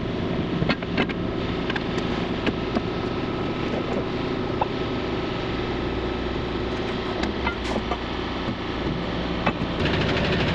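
Heavy truck engine running steadily, with scattered light clicks and rattles; it gets a little louder near the end.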